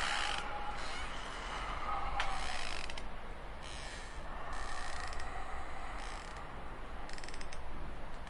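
Spooky Halloween sound-effect ambience: a continuous rough, mechanical-sounding creaking and grinding texture, with faint drawn-out eerie tones sliding through it, one falling about two seconds in.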